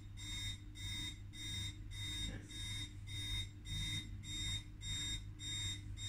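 Homemade motion-sensor hog alarm beeping, set off by its motion sensor: an even run of high electronic beeps, about two a second, over a steady low hum.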